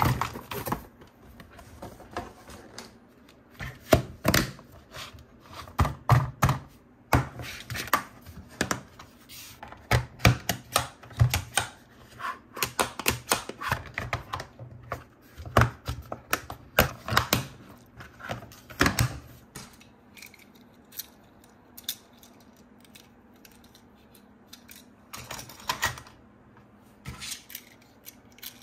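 Plastic toys and their packaging being handled: irregular clicks, taps and knocks that come thick and fast for most of the first twenty seconds, then only a few near the end.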